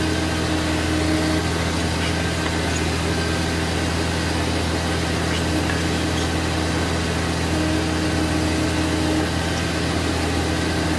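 New Holland T7060 tractor's diesel engine running steadily as the tractor drives, heard inside the cab. A higher whine rises over the engine twice, briefly.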